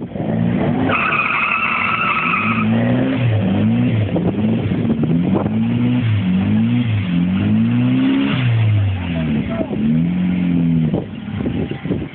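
Turbocharged Honda B16 four-cylinder in a Civic EK9 hatchback being free-revved over and over, the engine note rising and falling again and again and stopping about a second before the end. A steady high tone sounds for under two seconds early in the revving.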